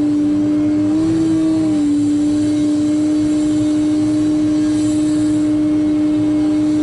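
Wheeled excavator's engine and hydraulics running steadily with a strong whine. The whine rises slightly about a second in and settles back within a second.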